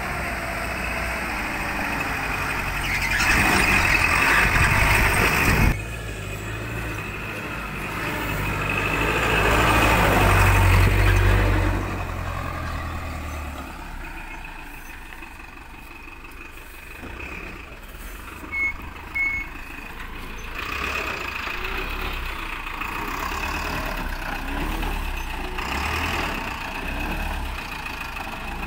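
Diesel tipper lorry engines running and pulling away, with a loud stretch that stops abruptly about six seconds in and a louder low surge around ten seconds. Two short high beeps come near the middle.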